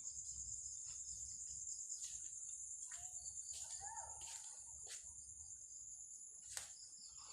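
Crickets chirring steadily in a high band, with scattered soft clicks and a few faint short lower calls in the middle.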